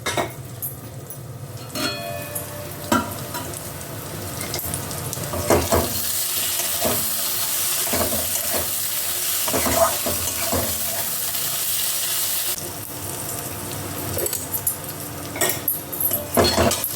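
Taro stolons frying in a spice masala in a pan, sizzling, with short scrapes and knocks of a spatula stirring them. The sizzle swells in the middle and drops suddenly about twelve seconds in; the masala is frying down near the end of cooking.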